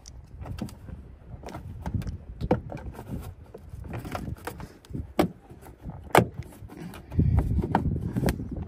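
Plastic rear hatch trim panels of a Toyota Grand Highlander being worked by hand, with a handful of sharp clicks from the trim clips snapping, the loudest about six seconds in, over low rubbing and handling noise.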